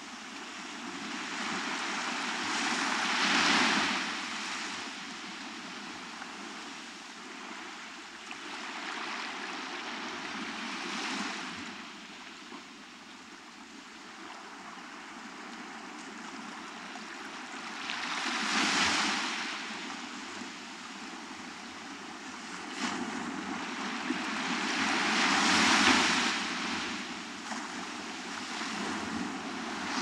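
Small ocean waves breaking and washing up a sandy beach, the surf hiss swelling and fading in four surges about every seven to eight seconds.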